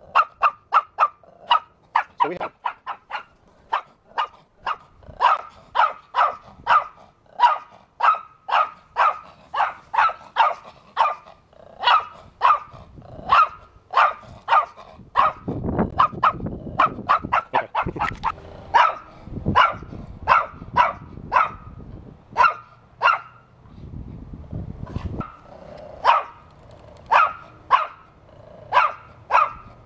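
Chihuahua barking without let-up in sharp, high yaps, about two a second, with a brief lull about three-quarters of the way through. Bursts of low rumble sound under the barking at times.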